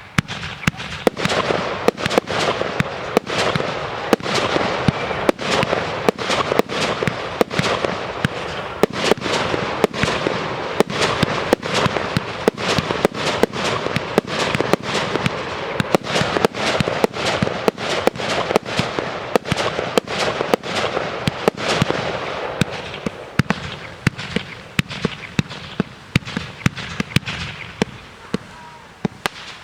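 Fireworks display: sharp bangs about once or twice a second over continuous crackling, easing off near the end.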